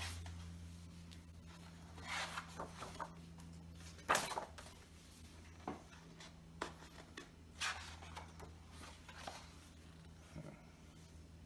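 Pages of an oversized book being turned and smoothed by hand: a series of short paper rustles and swishes, the loudest about four seconds in, over a steady low hum.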